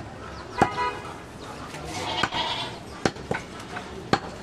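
Long, heavy butcher's knife chopping goat meat on a wooden log chopping block: about five sharp chops at uneven intervals, the loudest about half a second in.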